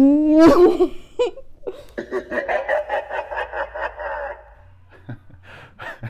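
A young woman's voice making a hummed sound effect: a held buzzing tone that sweeps up in pitch about half a second in as she swings her arms. It is followed by a few seconds of giggling laughter.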